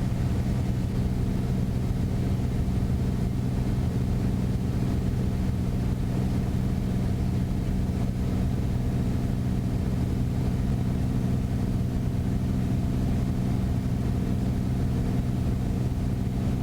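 Single piston engine and propeller of a Beechcraft Bonanza droning steadily, heard from inside the cockpit, with gear down and flaps set for approach.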